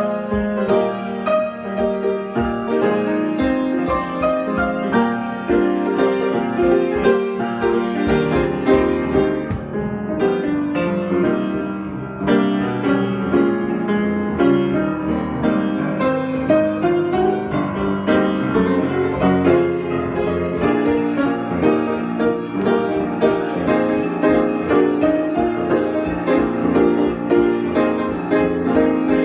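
Solo piano improvisation: a continuous flow of notes, with chords and melody over a sustained low register.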